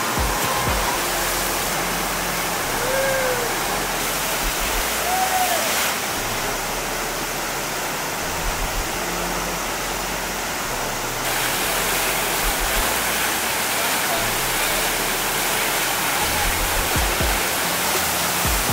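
Steady rush of pumped water pouring down a City Wave artificial standing-wave pool, with background music underneath; the water noise gets brighter about eleven seconds in.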